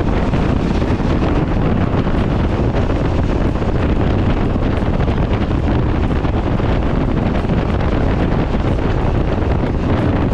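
Strong wind buffeting the microphone of a rider moving at road speed in a gale and rain, a steady loud rushing noise heaviest in the low end.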